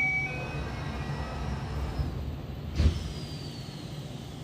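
Interior of a Yokohama Municipal Subway 3000R car standing at a station: a short chime of several notes at the start, and a sharp clunk with a hiss about three seconds in, over the steady low hum of the car's equipment.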